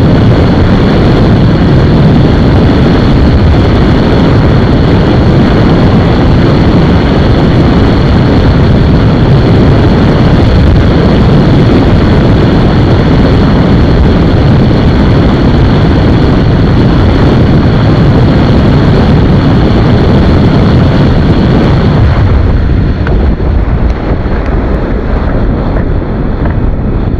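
Heavy wind roar buffeting the microphone on a TVS Apache RR 310 ridden near top speed, with its 312 cc single-cylinder engine running hard underneath. The roar eases a little about three-quarters of the way through.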